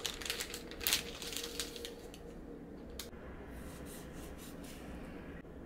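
Crisp rustling and clicking handling sounds, dense in the first two seconds, with a single sharp click about three seconds in and softer rustles after it, over a faint steady hum.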